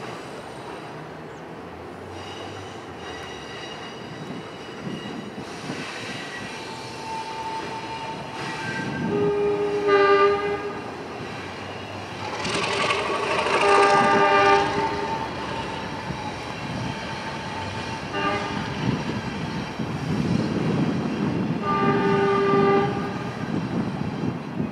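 Diesel locomotive air horn sounding the grade-crossing signal: two long blasts, a short one, then a long one. Underneath is the steady running of the passing train.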